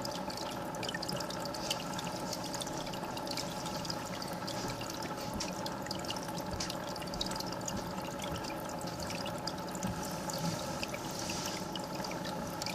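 Aquarium filter running: water trickling and splashing steadily into the tank, with scattered small drips over a steady hum.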